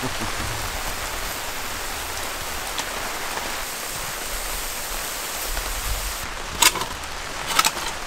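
Steady rain pattering on a tarp shelter, an even hiss throughout, with two short sharp clicks about a second apart near the end.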